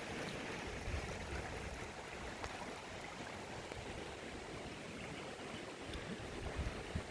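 Swollen floodwater rushing steadily after heavy rain, with a low, uneven rumble of wind on the microphone.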